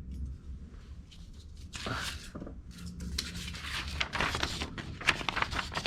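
A kitchen knife blade drawn repeatedly against a ceramic honing rod, a quick run of irregular scraping strokes starting about two seconds in, over a low steady hum.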